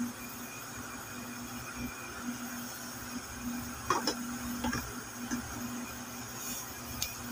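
Quiet kitchen background: a steady low hum and hiss, with a few faint light clicks about four seconds in and again near the end.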